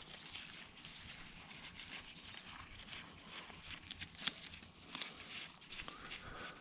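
Irregular crackling and scraping of mulch and soil being dug through by hand, with scattered small clicks and one sharper snap a little after four seconds in.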